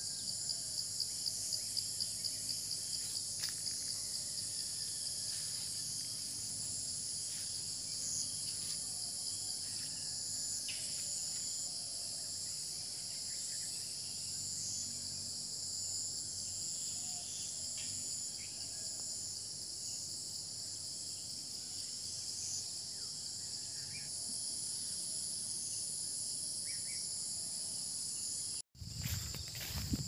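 Dense, steady chorus of insects calling, a continuous high-pitched shrilling that pulses quickly in the first few seconds. It cuts out for an instant near the end.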